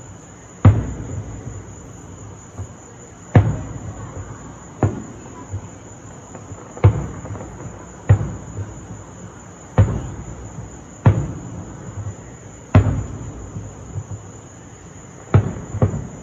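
Fireworks shells bursting in an uneven sequence, about ten booms in sixteen seconds, each sharp with a short echoing tail, over a steady high chirring of crickets.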